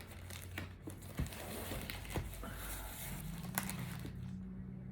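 Crinkling and rustling of packaging as graded comic books in hard plastic cases are handled, with a few sharp clicks and taps. A faint low hum joins about three seconds in.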